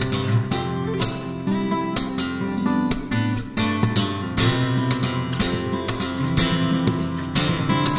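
Background music: acoustic guitar strummed and picked, with frequent strokes across the strings.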